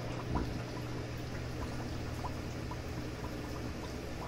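Aquarium water bubbling and trickling from an air-driven sponge filter, with small bubble pops scattered throughout, over a steady low hum.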